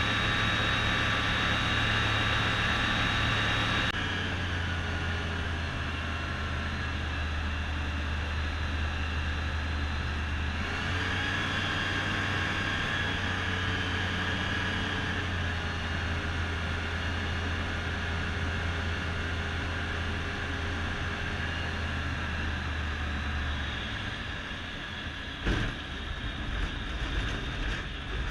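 Rotax 912 iS Sport flat-four aircraft engine heard from inside the cockpit, being throttled back in steps on approach: it drops in level about four seconds in and shifts pitch again a few seconds later. Near the end the engine falls quieter and a few sharp knocks and a bumpy rattle follow, as the aircraft touches down and rolls on grass.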